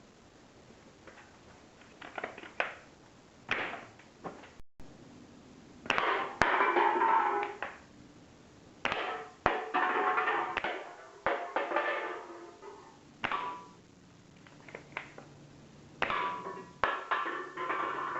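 Homemade elastic-powered lever action BB rifle being worked: an irregular run of sharp clacks and clicks, several followed by a brief ringing that dies away within a second or two.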